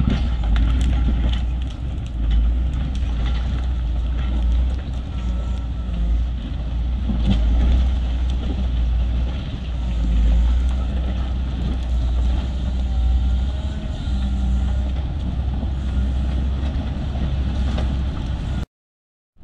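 Caterpillar 140M motor grader's diesel engine running steadily under load as the machine approaches, with the blade scraping the rocky road surface and stones crunching and knocking. The sound cuts off abruptly near the end.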